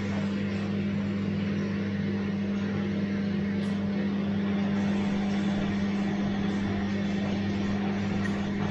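Bosch washing machine running: a steady low hum with an even rushing noise over it, unchanging throughout.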